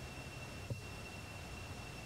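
Steady outdoor background hiss and low hum with a thin, steady high-pitched tone running through it, and one short click about three-quarters of a second in.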